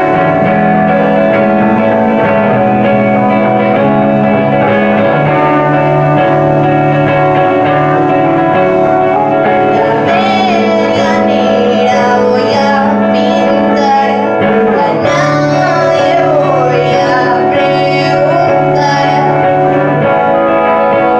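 Live rock band with two electric guitars ringing out sustained chords over steady low notes; about halfway through a woman's singing voice comes in over the guitars.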